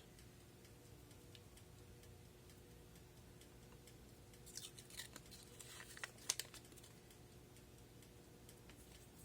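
Near silence, with faint rustling and a few soft clicks in the middle: hands picking up and handling a piece of raw mold rubber.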